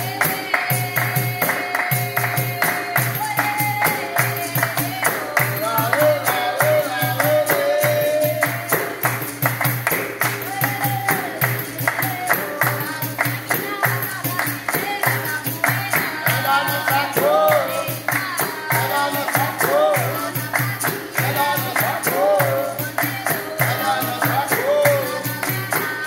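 Capoeira music: a berimbau played with a steady rhythm of hand claps and a small hand percussion instrument, while voices sing a melody over it.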